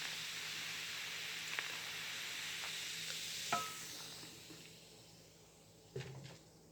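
Carbonated ginger ale fizzing in a cup, a steady fine hiss with a few tiny pops, which dies away about four to five seconds in. A small click comes about three and a half seconds in.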